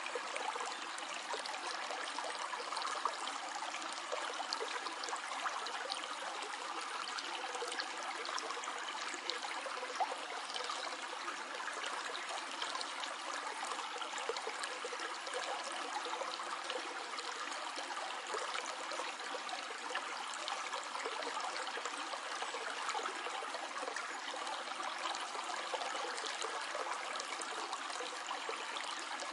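A stream flowing steadily over stones, a continuous babbling and trickling.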